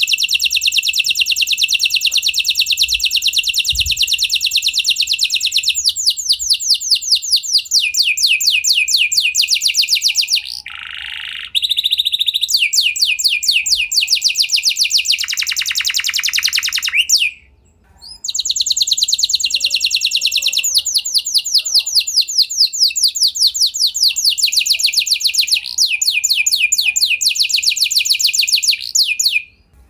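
F1 domestic canary singing a long, loud, high song made of rapid trills of repeated notes, changing trill type every second or two. Lower, fuller rolls come in about eleven and fifteen seconds in, and the song breaks off briefly after about seventeen seconds before resuming.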